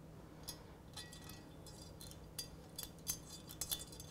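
Faint, irregular small metallic clicks and clinks as a stainless steel reinforcement plate and an M6 bolt with a washer are handled and fitted by hand. The clicks come a little more often in the second half.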